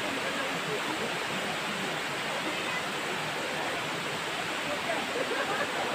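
Waterfall and its stream of fast water over rocks, a steady, even rush with no breaks.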